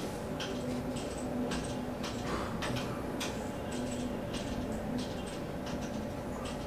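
Rotary encoder knob on a Schlöder CWG 1500 surge generator's front panel being turned, clicking through its detents in irregular ticks, a few a second, over a faint steady hum.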